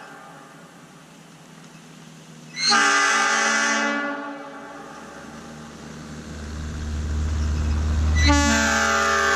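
Nathan AirChime P-3 locomotive air horn, bells 0, 1 and 3, sounding its three-note chord in blasts. A short blast comes about two and a half seconds in and fades. A low rumble then rises, and a second, longer blast starts near the end.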